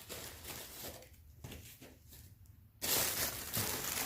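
Paper packaging rustling and crinkling as a sneaker box is unpacked by hand, dropping off for a couple of seconds and then coming back louder about three seconds in.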